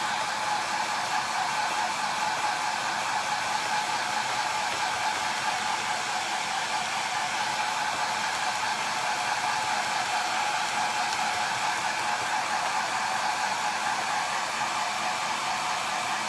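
Handheld hair dryer running steadily without a break: a constant rush of air with a motor whine on top.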